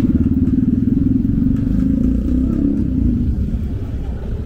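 Small motorcycle engine running loud and close, cutting in abruptly with a steady, fast firing rhythm that eases a little near the end.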